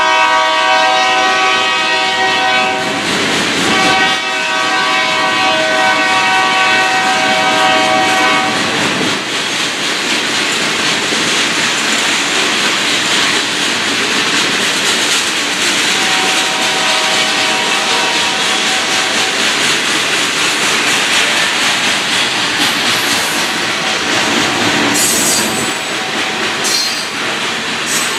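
Union Pacific freight train of covered hopper cars rolling past, wheels clattering steadily over the rails. The locomotive horn further up the train sounds a chord: one blast runs into the first three seconds, another lasts about five seconds, and a fainter one comes near the middle.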